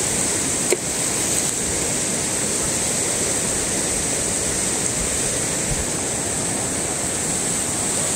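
Fast-flowing river water rushing steadily, a strong current. One short click a little under a second in.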